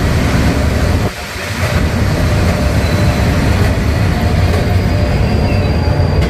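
Locomotive-hauled double-decker passenger train rolling slowly into the platform, with a steady rumble of wheels and running gear. A high squeal from the wheels sets in near the end as the train slows.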